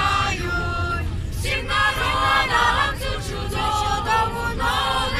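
Children's choir singing a Christmas carol unaccompanied, many voices together in sustained phrases.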